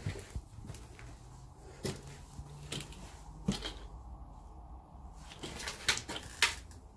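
Irregular knocks and clicks of someone moving about over a debris-strewn floor, with two sharper knocks near the end.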